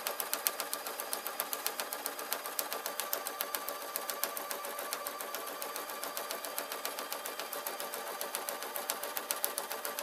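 Electric domestic sewing machine, a Singer, running steadily while stitching a seam through fur and lining: a steady motor whine under rapid, even needle ticks, easing off just after the end.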